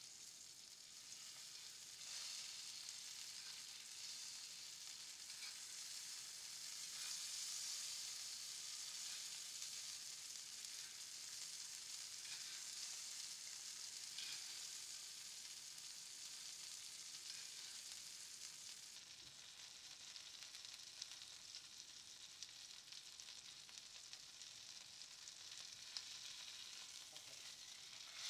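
Beef steak sizzling in butter in a cast iron skillet while being spoon-basted: a faint, steady frying hiss with a few light clicks.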